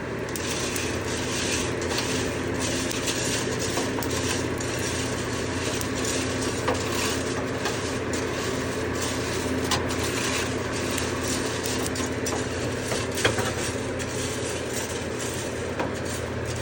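Coffee roaster running with a steady motor hum while freshly roasted beans rattle and tumble after being dumped at the end of the roast, with a few sharper clicks among them.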